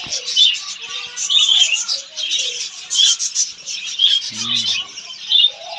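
Many small cage birds chattering and chirping continuously in a busy, overlapping chorus, with a brief low voice-like sound about four and a half seconds in.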